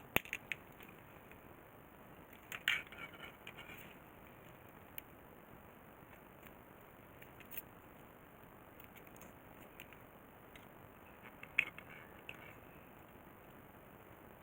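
Small hand tools clicking and scraping against a battery protection circuit board: a few light clicks, a short rattling cluster about three seconds in, and a sharper click near the end.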